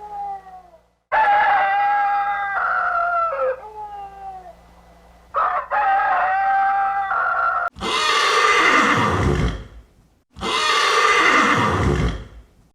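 A rooster crowing in several pitched calls with falling ends, then two harsh, noisy animal calls of about two seconds each.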